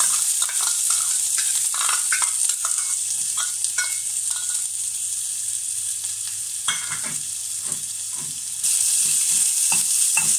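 Chopped onion sizzling in hot oil with mustard and fennel seeds in an aluminium pot, the tempering for the chutney, while a metal spoon scrapes and clicks against the pot. The sizzle jumps suddenly louder near the end.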